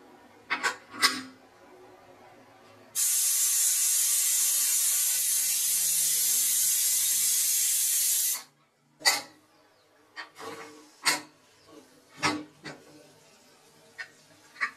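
Aluminium pressure cooker's weighted whistle letting off steam in one loud, steady hiss of about five seconds that cuts off sharply, the sign that the cooker has come up to pressure. Sharp metal clicks and knocks of the lid and weight being handled come before and after it.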